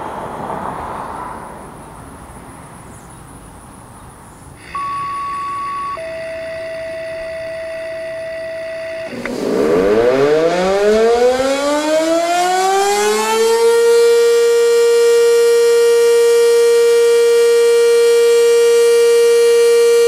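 Sentry 15V1T tornado siren on test, winding up from a low pitch over about four seconds and then holding one steady tone. It is preceded by a two-tone dispatch activation signal, a higher tone for about a second and then a lower one for about three seconds. A brief rushing noise swell comes at the very start.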